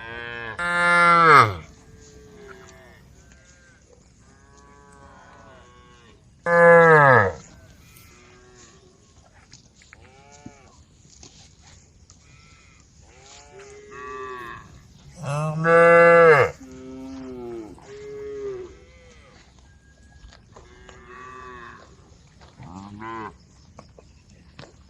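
A herd of cattle mooing. Three loud, long moos come about a second in, around seven seconds and around sixteen seconds, with many fainter moos from other cows in between.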